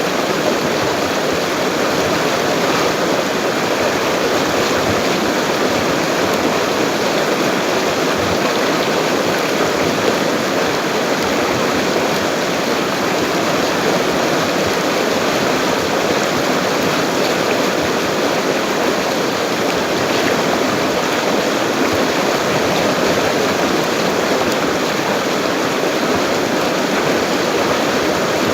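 A swift, full river flowing: an even, unbroken rush of water.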